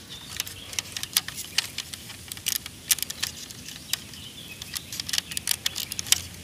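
Irregular light clicks and rattles of plastic Lego parts as a hand handles the rifle's magazine and body.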